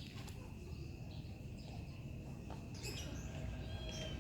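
An insect trilling steadily on one high tone, cricket-like, which stops about three seconds in; a few short high chirps follow near the end.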